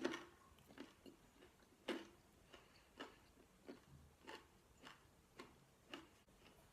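A person chewing food: faint, soft crunchy clicks about every half second to second, unevenly spaced.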